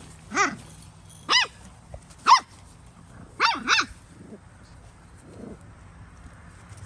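Puppy barking in short high-pitched yips, five in all, the last two in quick succession.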